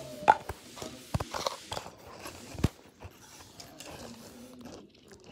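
Handling noise: rustling with a few sharp knocks and taps as toys and the phone are moved about. The loudest knock comes about two and a half seconds in.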